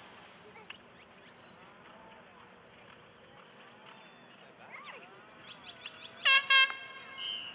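A horn sounding two short, loud blasts about six seconds in, followed by a brief high whistle, over faint distant voices.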